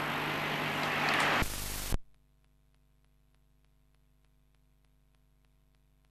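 Steady background hiss through the camcorder's microphone, broken about a second and a half in by a short loud burst of static as the recording cuts off. After that, near silence with a faint steady hum and faint ticks about three a second.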